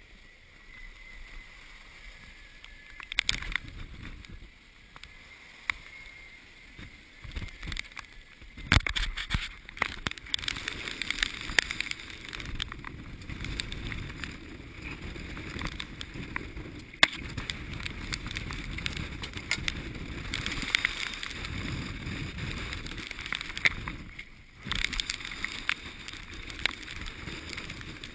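Sailboat in rough water: water sloshing and splashing around the hull, with many sharp knocks and clatters. It grows louder about nine seconds in and drops away briefly near the end before picking up again.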